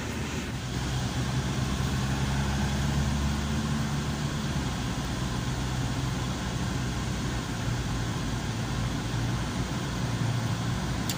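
Car engine and road noise heard from inside the cabin while driving: a steady hum.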